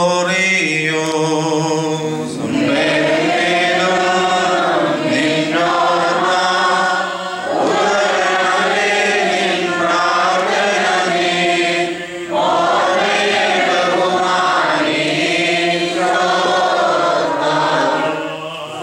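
A group of voices sings a Malankara Orthodox liturgical chant in long phrases with short breaks between them. A steady low held note sounds underneath.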